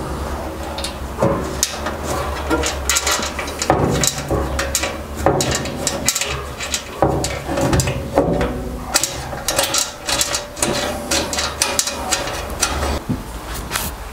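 Irregular sharp metallic clicks, knocks and rattles as steel bolts and brackets are handled and fitted by hand under a table saw's sheet-steel extension table.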